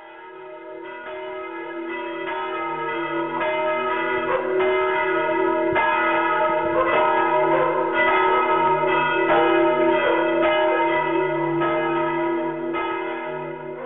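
Church bells ringing: several bells of different pitch struck over and over in a steady peal, each stroke ringing on. The peal swells in over the first few seconds and fades near the end.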